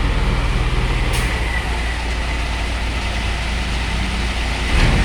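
Heavy diesel truck engine running steadily with a deep hum, with a brief hiss about a second in.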